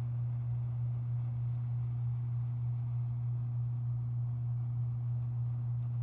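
Hampton Bay Littleton ceiling fan running in reverse (winter mode): its motor gives a steady low hum, with a faint, regular pulsing over it.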